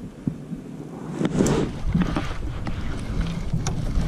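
Wind rumbling on the microphone, with scattered knocks and handling noise from a kayak, loudest about a second in, as a hooked bass is fought.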